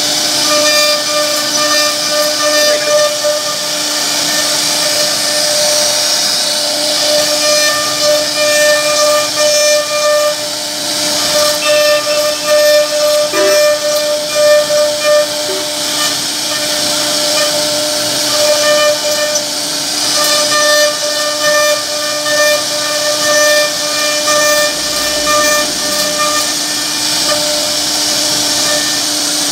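CNC router spindle running at a steady high-pitched whine as its bit carves a relief pattern into a wooden board, with a hiss from the cutting.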